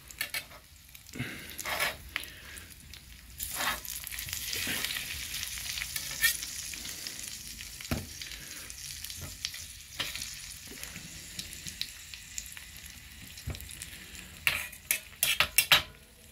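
Leftover pork belly, sausages and parsnips frying in a pan on a portable gas stove: a steady sizzle with scattered crackles, and a quick run of sharper clicks near the end.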